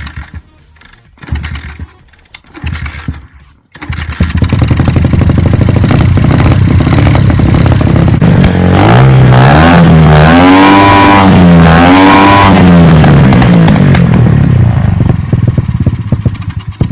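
Dirt bike engine being started on its freshly refitted carburettor: three short bursts in the first few seconds, then it catches about four seconds in and runs loud, revved up and down twice in the middle, and stops near the end.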